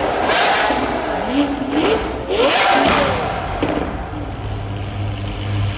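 Lamborghini Aventador V12 on a Fi valved exhaust, revved twice in quick blips. Each rev rises in pitch and falls back with a loud rush of exhaust noise, and after the second the engine settles to a steady idle.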